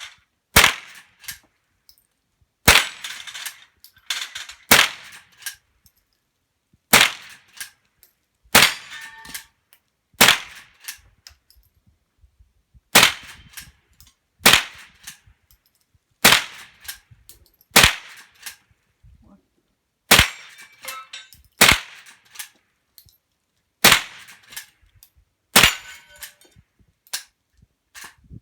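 Henry Golden Boy .22LR lever-action rifle fired about fourteen times in a steady string, a shot every two seconds or so. Each sharp crack is followed by lighter metallic clicks as the lever is worked to chamber the next round.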